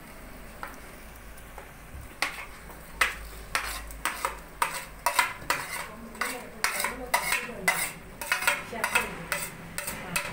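A metal spoon scraping and knocking tomato paste off a plate into a cooking pot: a quick, irregular run of clinks and scrapes that starts about two seconds in.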